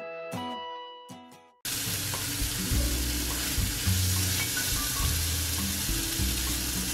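A short music jingle fades out, then about a second and a half in gochujang-coated pork belly starts sizzling in a frying pan, over a low bass line of background music.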